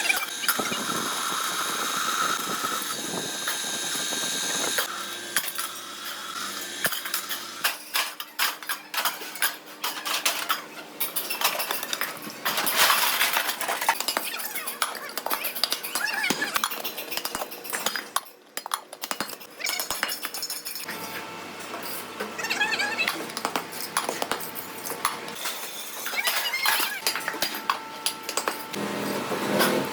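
Metalworking noise from steel gas-cylinder manufacture: repeated metal clanks, knocks and clinks over machine noise, changing abruptly every few seconds as one process gives way to another.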